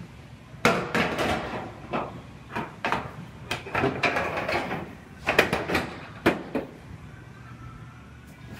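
Irregular knocks and clunks of a new sheet-metal Honda Civic quarter panel being handled and test-fitted against the car body, loudest about five seconds in.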